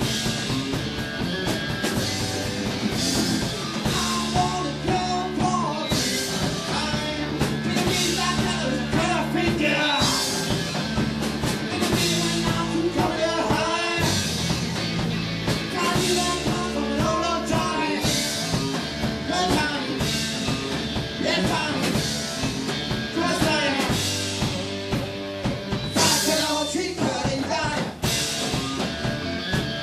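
A rock band playing live: electric guitar, bass guitar and a drum kit, loud and continuous.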